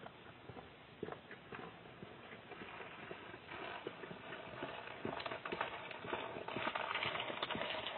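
Footsteps on a concrete driveway, coming closer, with scattered clicks and knocks over a hiss that grows louder from a few seconds in.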